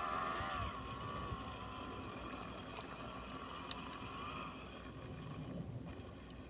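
Electric motor and gearbox of an RC rock crawler truck whining as it crawls, the pitch wavering with the throttle. The whine is loudest at the start and dies away about five and a half seconds in, with a few small clicks along the way.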